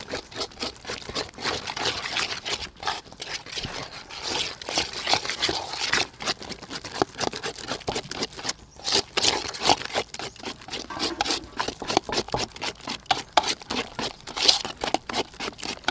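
A wire whisk beating a flour and egg batter in a stainless steel mixing bowl: quick, repeated strokes scraping and clicking against the metal.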